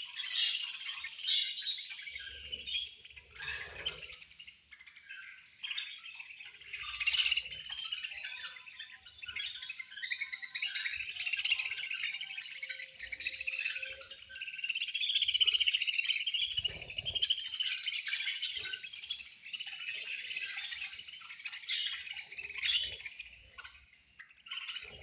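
A flock of budgerigars chirping and chattering in dense, overlapping, high warbling calls with no pause.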